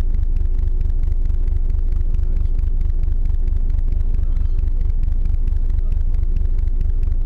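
Icebreaker ship's engine drone: a steady, heavy low rumble with a fast, even pulse and a constant hum.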